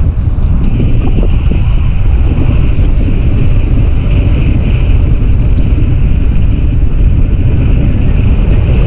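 Wind rushing and buffeting against the microphone of a selfie-stick camera in tandem paraglider flight: a loud, steady rumble, heaviest in the low end.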